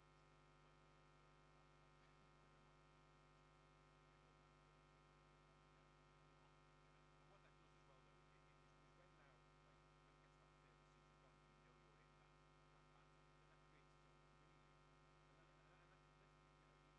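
Near silence: only a faint, steady electrical hum from a dead broadcast sound feed, the sign that the outside-broadcast audio has been lost.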